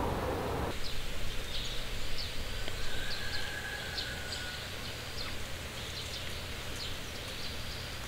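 Outdoor ambience: a steady low rumble with many short, high chirps from small animals scattered throughout. A louder hiss cuts off abruptly about a second in.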